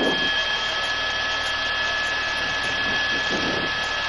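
Aircraft engine running steadily: an even rush with a constant high whine, with faint voices in the background.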